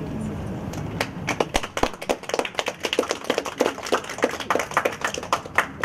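A small audience clapping, starting about a second in and stopping just before the end.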